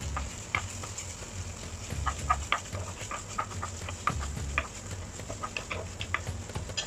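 Wooden spatula stirring and scraping ground-beef filling in a non-stick frying pan: irregular light knocks and scrapes over a faint sizzle.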